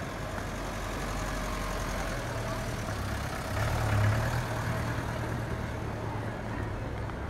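Engine of an olive-green military utility vehicle running as it drives slowly past close by, a low hum that swells to its loudest about four seconds in and then eases off.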